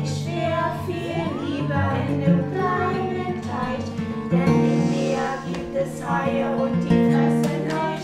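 A song with acoustic guitar and singing voices.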